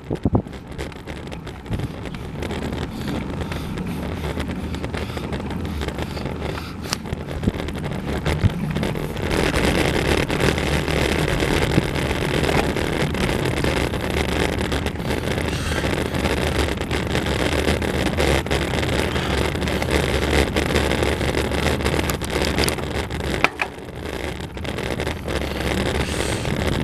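Steady wind and road noise from a vehicle climbing a winding mountain road at about 35 km/h, with a low hum beneath it, growing louder about nine seconds in and dropping away for a moment near the end.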